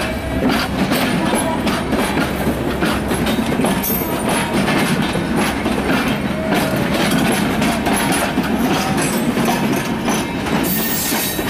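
Bangladesh Railway passenger coaches running past close by, their wheels clacking over the rail joints over a steady rumble.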